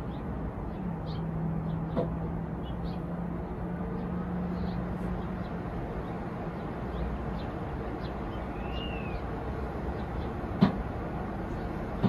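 Tesla Model 3 heat pump compressor on its fourth start attempt in the cold, a steady low hum over a low rumble that fades after a few seconds; this is the replaced compressor that needs several tries to start, and this attempt succeeds. A sharp knock near the end is a child knocking on a house window.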